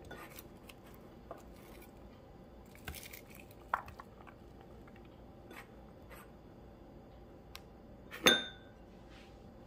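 Sliced onions being dropped by hand into a metal cooking pot over raw fish, with soft scattered taps and light clinks. About eight seconds in comes a sharp metallic clank that leaves the pot ringing briefly.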